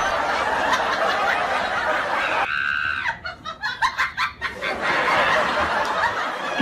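People laughing, with a quick run of short laughs about three seconds in.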